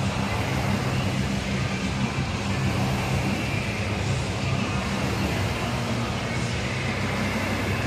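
Air-resistance rowing machine's fan flywheel whirring steadily as it is rowed.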